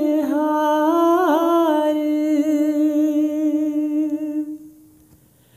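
An unaccompanied solo voice holding one long, slightly wavering note at the end of a line of a shabad (Sikh devotional hymn), fading out about four and a half seconds in.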